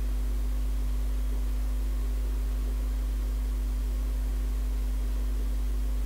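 Steady low electrical mains hum with a faint hiss.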